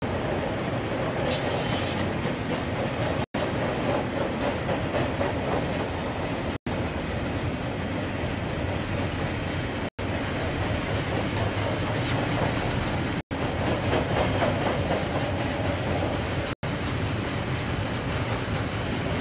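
KiwiRail train wagons rolling past on the rails, a steady rumble with a brief high wheel squeal about a second and a half in and fainter squeals later. The audio drops out briefly about every three seconds.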